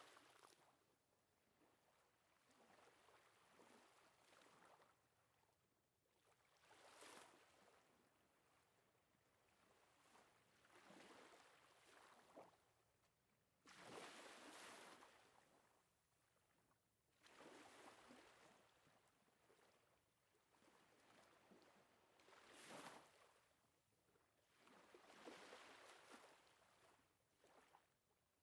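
Near silence, with very faint swells of rushing noise that rise and fall every few seconds.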